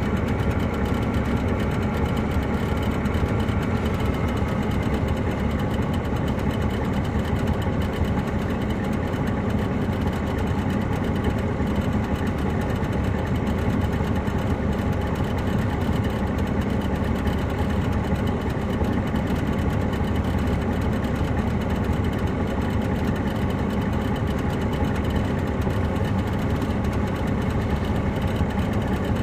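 The Caterpillar C13 diesel engine of a 2007 MCI D4500CL coach running at a steady, unchanging pitch and level, heard from inside the bus.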